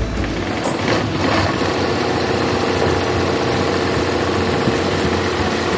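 Zigzag sewing machine running steadily, stitching a thick picot (pico) edge along fabric with the zigzag width dial set to 4.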